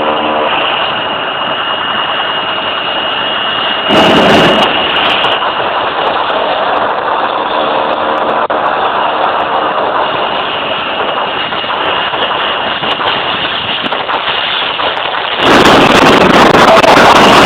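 F-16 fighter jet engine running, a steady rushing noise with a high whine through it. There is a short louder burst about four seconds in, and near the end the noise gets louder and fuller.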